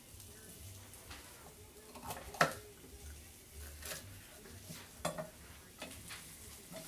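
A knife knocking and clicking a few times at irregular intervals on a wooden cutting board as red peppers are cut and handled. The loudest knock comes about two and a half seconds in.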